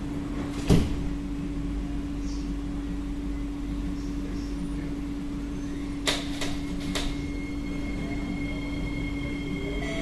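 C151B metro train sliding door shutting with a thump about a second in, over a steady electrical hum from the train. A few sharp clicks follow around six and seven seconds. Near the end a rising whine starts as the traction motors pull the train away from the platform.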